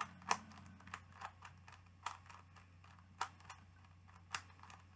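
Plastic megaminx puzzle cube being turned by hand: irregular clicks and clacks of its faces snapping into place, a few per second. The cube is fairly well lubricated, by its owner's account.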